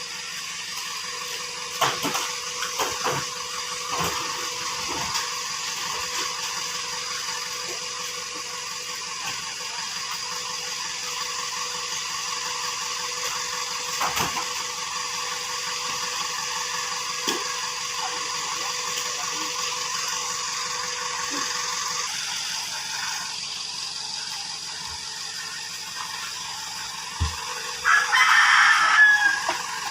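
Chickens clucking over a steady hum, with a louder call near the end that sounds like a rooster crowing.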